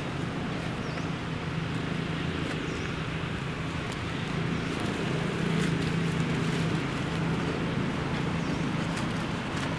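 A steady low hum of a running motor or engine, holding level throughout, with faint scattered clicks over it.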